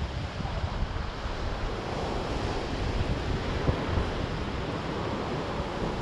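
Surf breaking on a pebble beach in a slightly stormy sea, with wind buffeting the microphone in a low, uneven rumble.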